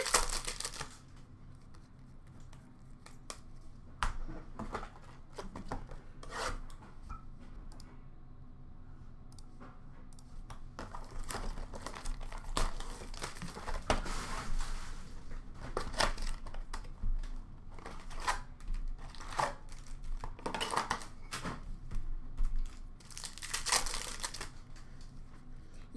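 Foil wrappers of Upper Deck hockey card packs torn open and crinkled by hand, with cards rustling. Scattered clicks at first, then bursts of crinkling about halfway through and a louder one near the end.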